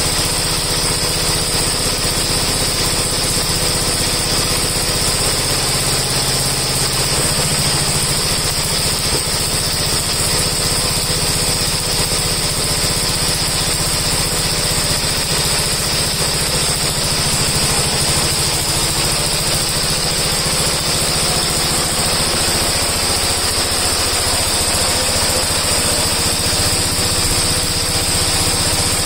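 Gravely tractor engine running steadily at idle, warming up after a cold start with the choke just taken off; its speed shifts slightly a few times.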